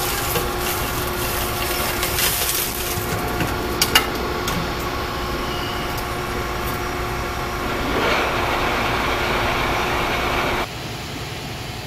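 Hydraulic motor-wrecking press running with a steady mechanical hum as its wedge blade is driven into a scrap electric motor stator to split it. There are two sharp metal cracks about four seconds in, and a hiss swells later on before the sound cuts off suddenly near the end.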